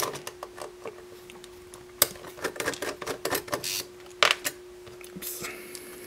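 Irregular light clicks and taps of small metal parts and a screwdriver as the screws and stamped metal top plate of a single-disc car CD mechanism are removed, over a faint steady hum.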